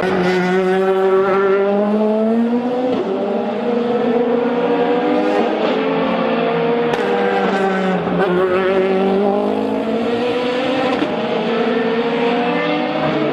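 GTE-class race car engine accelerating hard through the gears, its pitch climbing and then dropping sharply at each upshift, several upshifts a few seconds apart.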